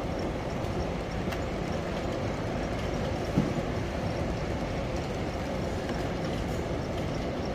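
HO scale model train running on the layout's track, a steady rolling noise with a light, regular ticking, and one brief knock a little over three seconds in.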